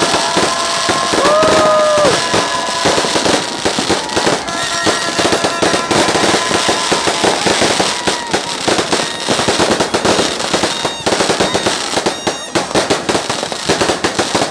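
Dense New Year's fireworks and firecrackers, a rapid, continuous crackle of bangs. A few held pitched tones sound over them in the first couple of seconds.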